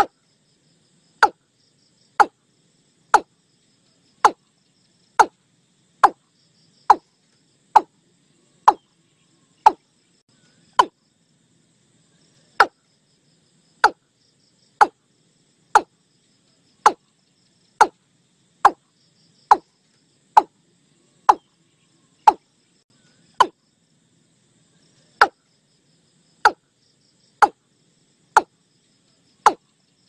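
Watercock (ayam-ayaman) call recording used as a hunting caller: short, sharp notes that drop quickly in pitch, repeated about once a second with a few brief pauses. Faint insects trill high in the background.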